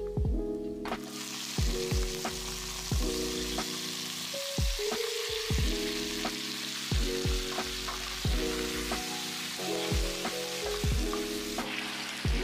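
Pork pieces sizzling in hot oil and garlic paste in a frying pan; the sizzle starts about a second in as the meat hits the pan. Background music with a regular plucked beat plays throughout.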